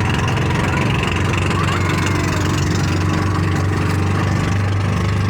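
Small boat engine running steadily.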